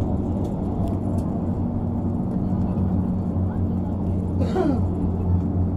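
A TransJakarta city bus's engine and drivetrain drone steadily, heard from inside the passenger cabin while the bus is moving. About four and a half seconds in, a brief sound slides down in pitch.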